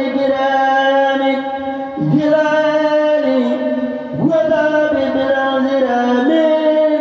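A voice over a sound system chanting an Arabic devotional poem in praise of the Prophet, in long held, wavering notes. The phrases break off and start again about every two seconds.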